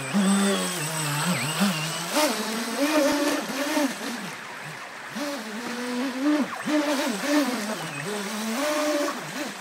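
Small brushless electric motor and jet pump of an RC jet boat whining, the pitch rising and falling repeatedly with the throttle, over the rush of fast-flowing floodwater.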